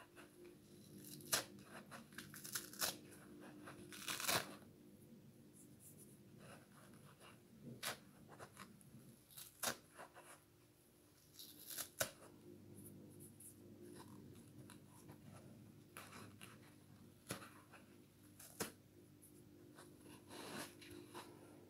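A green abrasive scouring pad being plucked and torn off a yellow kitchen sponge by hand, in short irregular crackly rips and scratches.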